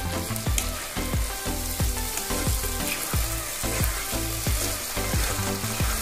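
Spiced onion, tomato and potato masala sizzling in oil in a pan, stirred and turned with a slotted spatula; the masala is fried down to where the oil separates. Background music with a steady beat plays under it.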